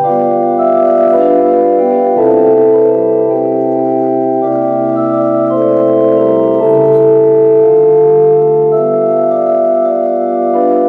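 Organ playing slow, sustained chords that change every second or two.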